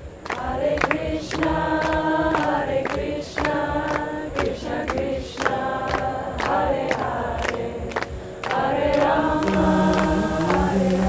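Intro music: choir-like voices singing held, chant-like notes in phrases over a steady beat of sharp percussive strikes, about two a second. A deep held note joins near the end.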